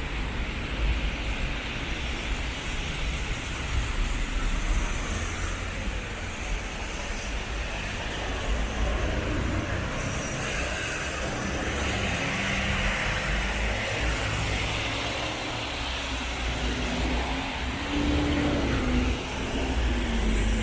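Road traffic passing on wet pavement: a steady rumble of engines and the hiss of tyres, with one vehicle's engine hum standing out near the end.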